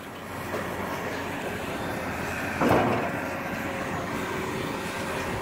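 Cat scrap-yard material handler running steadily as it works the scrap pile with its grapple, with one sharp clank about two and a half seconds in.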